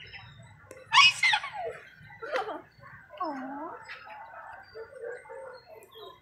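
A child's wordless vocal sounds: a loud, high squeal sliding down in pitch about a second in, followed by a few shorter sliding calls and a dipping, swooping tone.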